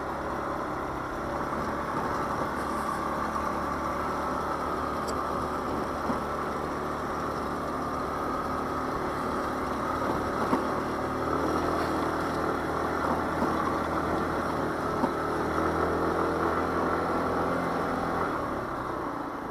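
Daelim Witty 100 scooter's small engine running steadily while being ridden. Its note grows a little fuller from about halfway and eases off near the end.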